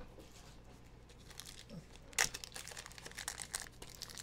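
Plastic trading-card packaging crinkling and tearing as cards are handled. It starts about two seconds in, after a quiet stretch, as a string of short crackles.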